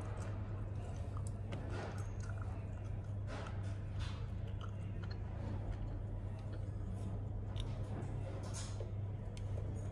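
Faint clicks and scrapes of a precision screwdriver driving tiny screws back into an opened iPhone 12 Pro, over a steady low hum.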